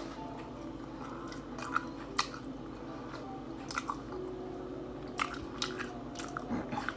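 A person chewing and biting food, with short moist mouth clicks at irregular moments.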